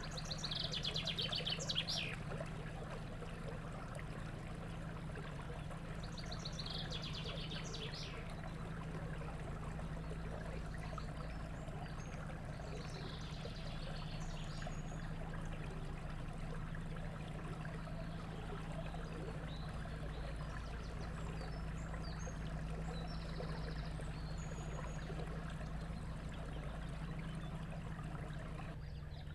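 Small songbirds singing: three fast trilled songs in the first fifteen seconds, then scattered short chirps. Underneath runs a steady low hum and a soft trickle of water.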